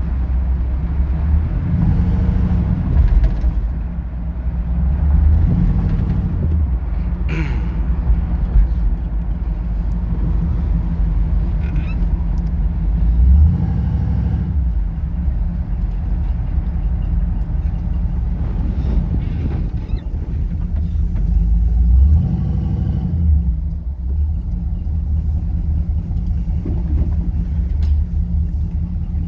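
1971 Chevy C10's 350 small-block V8 running warm after a cold start, with a deep steady rumble that swells as the revs rise a few times.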